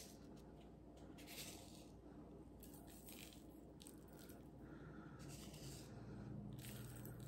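Near silence with faint, short rustles of salt grains being pinched from a plastic jar and sprinkled over fries. A low steady hum comes in near the end.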